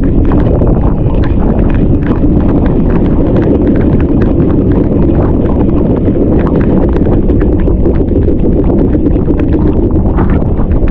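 Small boat under way in rough sea: a loud, steady rumble with rapid, irregular knocks, typical of the hull slapping through choppy water.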